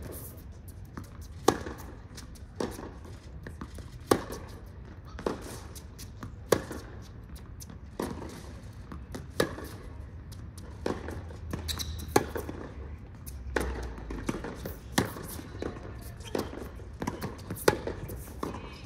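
Tennis ball struck back and forth by racquets in a long baseline rally on a hard court: a sharp pock about every second and a half, the louder hits from the near player alternating with softer ones from the far end.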